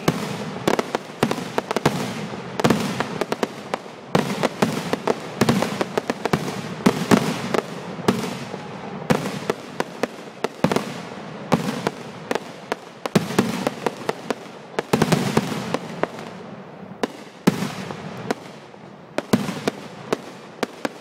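Aerial fireworks display: a rapid series of shell bursts, bangs and crackles, with booms rumbling and echoing between them.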